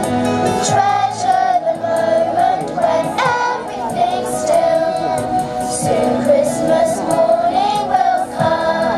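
Children's choir singing together, the sung melody gliding between held notes over music.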